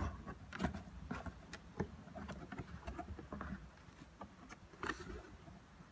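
Scissors cutting through packing tape on a cardboard box, with irregular scratches, clicks and scrapes of the cardboard being handled, over a low steady rumble.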